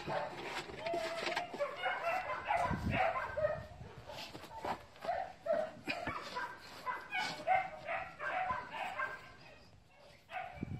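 A dog yipping and barking in quick, repeated short calls, dying down near the end.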